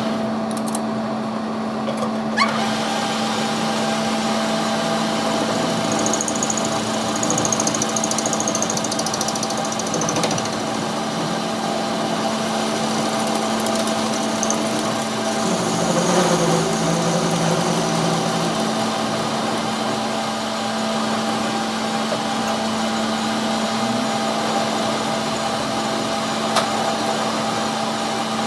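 A power tool or shop machine running steadily, a constant hum with a steady tone over a noisy whir, with a brief change in pitch partway through.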